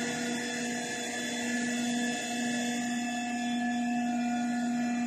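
Automatic wheelie-bin washing machine running with a steady, even hum from its motor drive as it lifts and tips a wheelie bin upside down.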